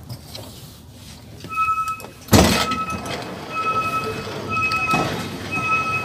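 Electronic beeping from a train's doors, a single high tone sounding about once a second. A loud thunk comes about two seconds in, the loudest sound here, as someone steps from the train onto the platform.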